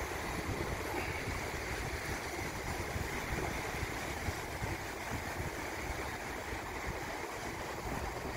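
Sea water washing and splashing around shoreline rocks, a steady rushing noise, with wind buffeting the microphone.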